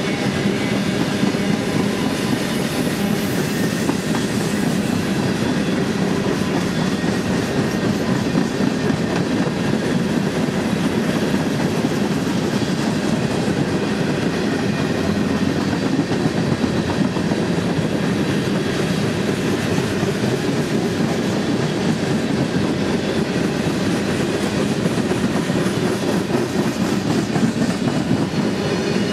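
Freight train of open-top hopper cars rolling past at close range: steel wheels on the rails making a steady, unbroken rumble and clatter.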